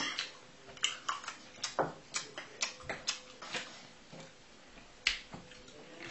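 Noisy open-mouthed chewing: a string of wet lip smacks about two a second, easing off after about three and a half seconds, with one more sharp smack about five seconds in.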